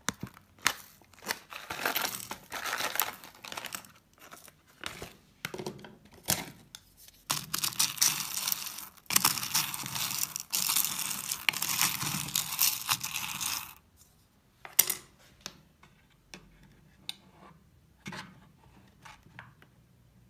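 Plastic pouch crinkling and small hard-wax beads rattling into a wax warmer pot. In the middle comes a dense stretch of about six seconds of beads rustling and grinding as a wooden spatula stirs them, followed by scattered single clicks.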